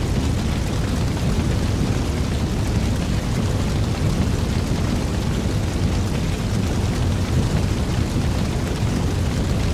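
Sound effect of a large fire burning: a loud, steady, rumbling blaze that cuts off suddenly at the very end.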